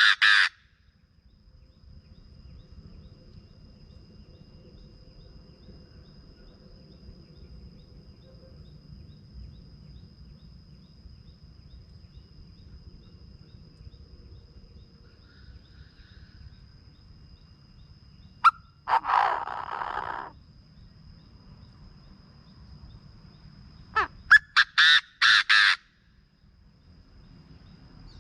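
Chinese francolin calling: a rapid run of loud, harsh notes ending just after the start, a rasping call about a second and a half long near the middle, and another rapid run of about six notes near the end. Between the calls a faint steady high whine and low background hiss.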